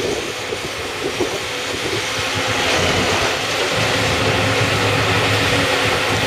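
Tyre shredding machine and its discharge conveyor running, with a wheeled excavator's engine, making a steady loud mechanical din with a constant low hum. It grows a little louder about two seconds in.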